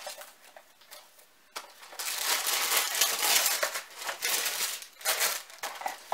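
Paper rustling and crinkling as the black paper lining of a gift box is handled and folded back, with small crackles and handling knocks. It is faint for the first second and a half, then loud until shortly before the end.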